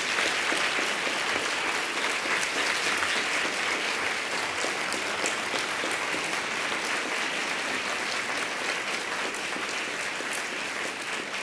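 Audience applause, many people clapping steadily, dying away near the end.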